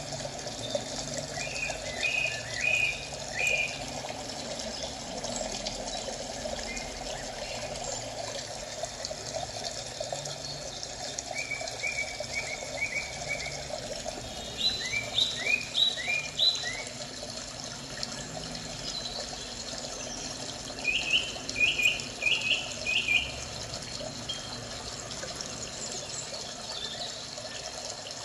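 Steady sound of running water, with a small bird chirping in four short series of four or five quick notes each.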